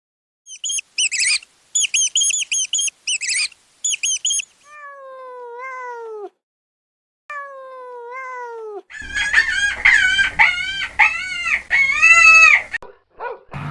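Cats meowing: first a run of very short, high squeaky calls, then two long meows that fall in pitch, then a quick series of high kitten mews.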